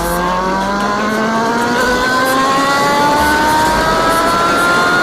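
Yamaha XJ6 motorcycle's inline-four engine accelerating, its pitch rising steadily and unbroken.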